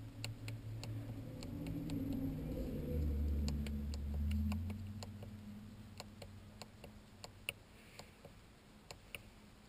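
Light clicks and ticks inside a car cabin, irregular at first and then about three a second, with the ignition on and the engine off. A low rumble swells and fades in the first half.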